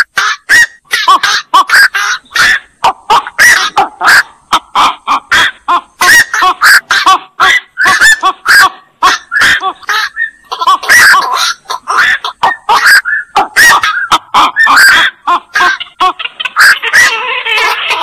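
Black-crowned night herons calling: a rapid string of short, harsh squawks, two or three a second, thickening into an overlapping chorus near the end.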